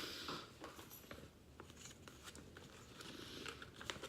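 Faint rustling and small clicks of packaging being handled: a short rustle at the start, light ticks, another soft rustle about three seconds in and a sharper click near the end.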